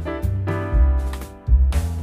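Background music: an instrumental passage with keyboard chords over a pulsing bass beat.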